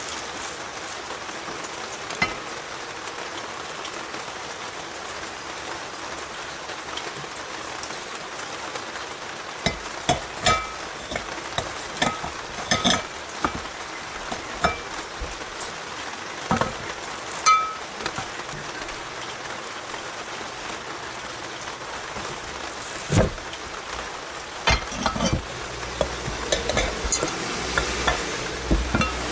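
Scattered light clinks and knocks of metal parts being handled as a motorcycle generator stator coil is set into its aluminium cover, over a steady hiss. A low rumble builds near the end.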